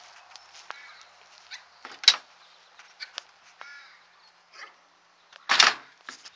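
Crows cawing repeatedly in the background, about once a second. There is a sharp click about two seconds in and a louder, brief knock or scrape near the end.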